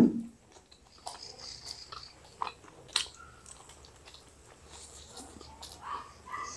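Quiet eating sounds from two people biting and chewing fried chicken lollipops and forkfuls of chow mein noodles: scattered small mouth clicks and smacks, the sharpest about three seconds in.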